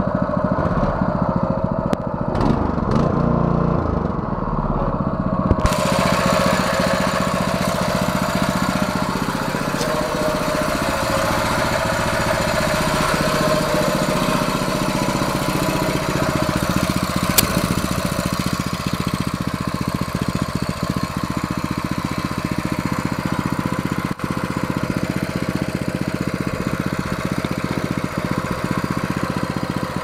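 Harbor Freight Predator 212cc single-cylinder four-stroke engine (a Honda GX200 clone) on a mini bike, running steadily at a constant speed; the engine is new and on break-in oil. One sharp click about halfway through.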